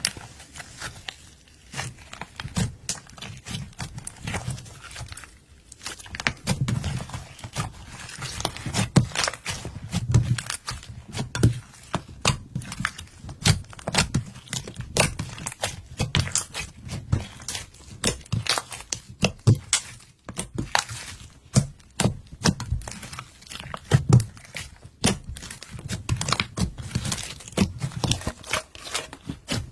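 Glitter slime being squished, stretched and folded by hand, with many irregular sticky clicks and small air-bubble pops over soft squelching thuds.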